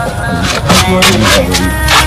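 Background music: a melody over held tones, with drum hits.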